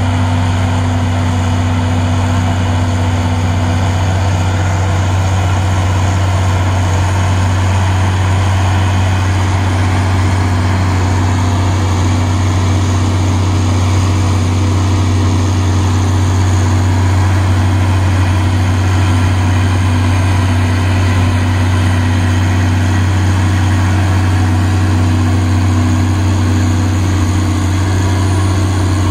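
Amphibex amphibious icebreaker's engine running steadily while the boat pushes broken ice downstream, a constant loud low hum with a fainter tone above it.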